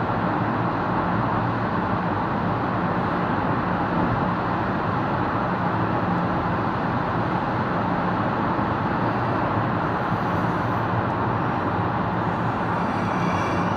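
Car driving through a road tunnel, heard from inside the cabin: steady tyre and road noise with a low engine hum.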